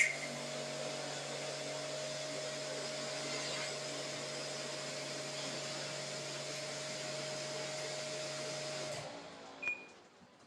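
A steady electric motor hum with a hiss, which cuts off about nine seconds in. A short beep follows.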